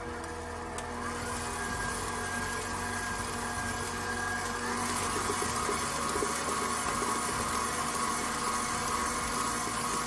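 KitchenAid Professional 6000 HD stand mixer running, its wire whisk beating chocolate cake batter in a steel bowl. It makes a steady motor whir that grows louder about halfway through.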